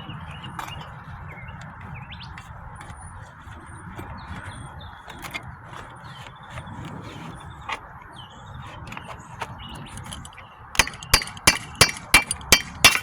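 Birds chirping over faint scraping work, then near the end a quick run of about eight sharp knocks as a hidden fastener holding a cedar roof shake is worked loose.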